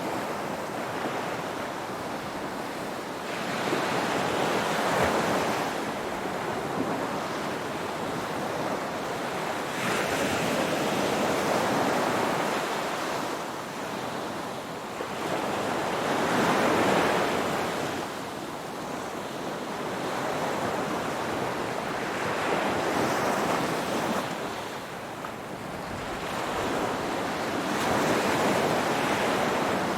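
Ocean waves rolling in, each surge of surf swelling and fading away about every six seconds.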